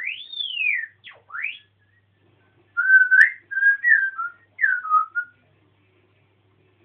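African grey parrot whistling: one rising-and-falling whistle, then a quick swoop down and back up. After a pause comes a warbling run of whistled notes, with a single click among them.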